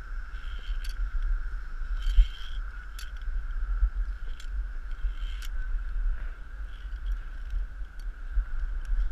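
Wind buffeting the microphone of a body-worn action camera as a steady low rumble, over a steady high-pitched hum. Scattered short clicks and knocks from the climber's gear and the ropes course's cables and wooden elements come through, the strongest about two seconds in.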